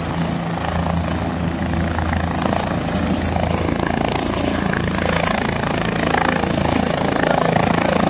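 Single-engine helicopter running close to the ground over a helipad: a steady, loud rotor hum under turbine and wash noise, getting a little louder toward the end.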